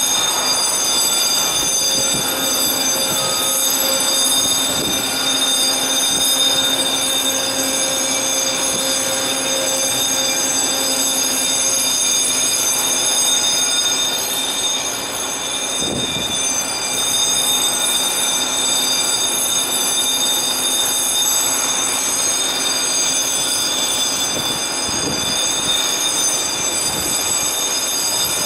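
Panama Canal lock machinery giving a steady, high-pitched mechanical whine, with a low hum that weakens about halfway through and a few faint knocks.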